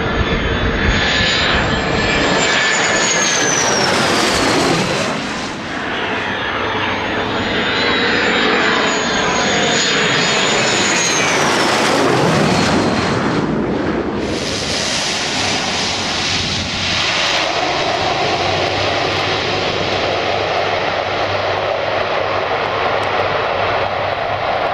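F-16 fighter jets on landing approach, gear down, passing low overhead: the jet whine falls in pitch as each one goes by, twice. About 14 s in the sound changes suddenly to a steadier engine drone, from a Pilatus PC-12 single-engine turboprop.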